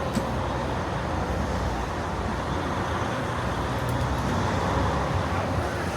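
Steady city street traffic noise: vehicles running past with a low rumble.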